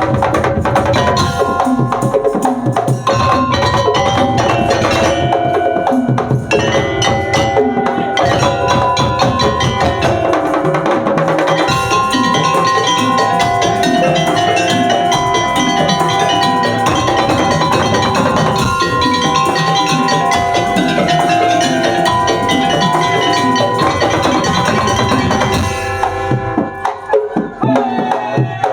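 Madurese tongtong (daul) percussion ensemble playing: wooden slit drums and drums in a dense, fast rhythm under held melody notes. About 26 seconds in, the full ensemble drops out, leaving sparser, choppier hits.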